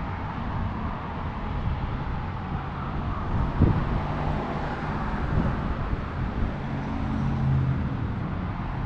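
A vehicle engine running steadily with a low rumble, with a single knock about three and a half seconds in.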